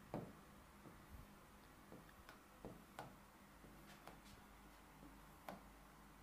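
Faint, irregular ticks of a stylus tapping and writing on an interactive display screen, about eight or nine in all, over near-silent room tone.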